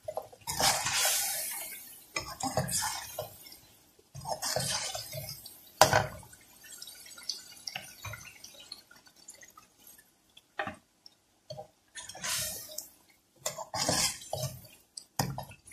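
A little water added to hot fried masala and chicken in a metal pan hisses in several short bursts, with a metal spoon clinking and scraping against the pan as the curry is stirred; one sharp clink about six seconds in.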